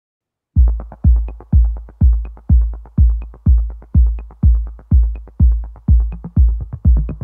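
Electronic background music: after a brief silence, a deep kick drum beats steadily about twice a second with light ticks above it.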